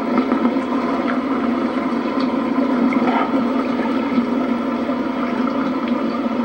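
Boat engine running steadily under way, a constant low drone with water noise.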